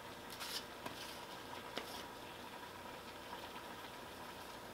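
Onion powder being shaken from a spice shaker into a pot: a brief rustle about half a second in and a couple of light clicks, faint over a steady low hiss.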